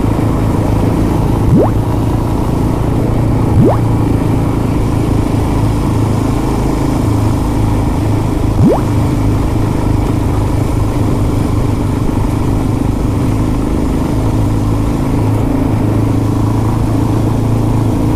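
Motorcycle engine running steadily as the bike cruises, with a few short, sharp rising chirps over it.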